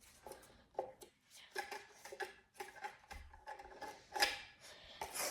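Scattered short plastic clicks and rattles from handling a toy foam-dart blaster, with a louder click about four seconds in.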